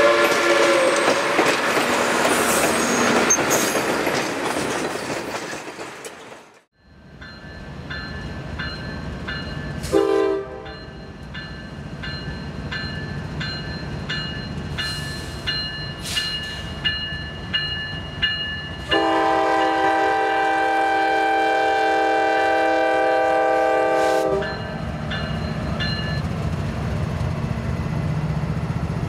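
Trains passing: loud rolling noise of a passing train as a horn note dies away, then steady high ringing with light clicks and a short toot from a locomotive horn. A long horn blast of about five seconds follows, then the low rumble of a locomotive engine.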